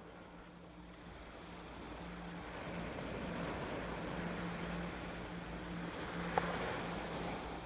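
Ocean waves washing, a steady rushing noise that fades in over the first few seconds, with a low hum underneath and a single sharp click about six seconds in.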